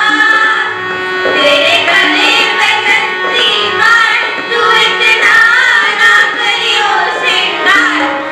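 Girls' voices singing a Hindi devotional song, accompanied by a harmonium holding steady notes.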